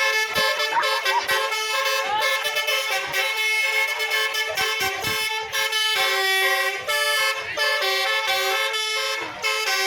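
Basuri telolet multi-tone bus horn playing a melody: several horn tones sounding together, stepping from note to note every fraction of a second.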